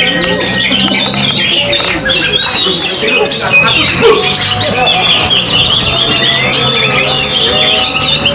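Several oriental magpie-robins singing at once, a dense tangle of overlapping loud whistles, trills and squawking calls, over a faint steady low hum.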